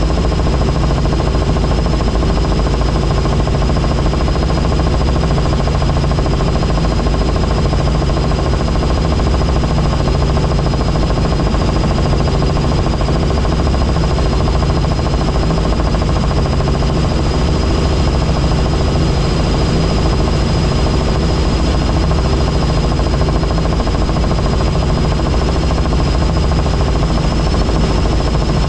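Helicopter in flight: steady rotor and engine noise with a fast, even beat from the blades and a steady high whine.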